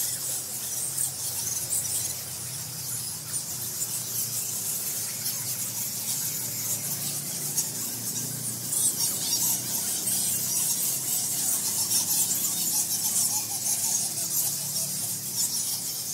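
A roosting colony of bats squeaking and chittering. Many high-pitched calls overlap into a dense, continuous chorus.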